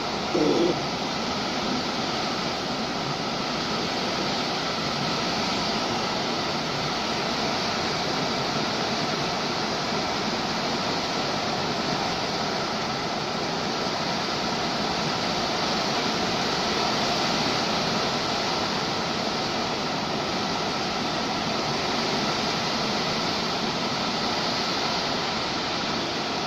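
Steady rushing noise of tropical-storm wind and rain, even throughout, with a brief pitched squeak about half a second in.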